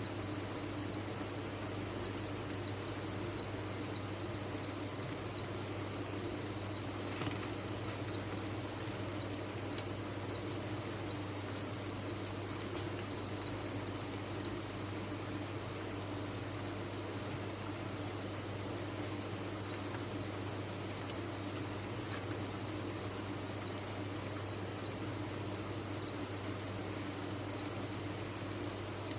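A dense mass of farmed crickets chirping, merged into one steady high-pitched chorus without a break, over a low steady hum.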